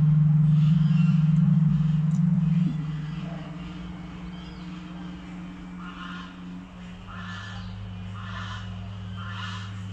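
Ducks quacking in a regular series, about one call a second from about six seconds in. Under them runs a low steady tone, loud for the first three seconds, then dropping to a softer level.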